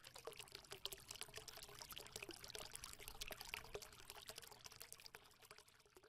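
Faint crackling made of a dense, uneven run of small ticks, fading out about a second before the end.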